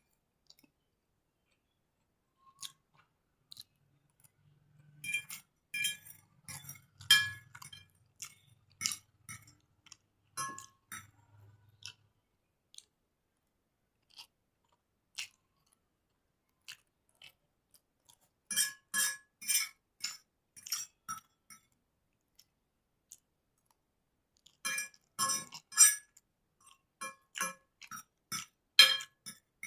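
Close-miked chewing of chowmein noodles: wet mouth clicks and smacks coming in three bursts, about a sixth of the way in, past the middle, and again near the end, with quiet pauses between.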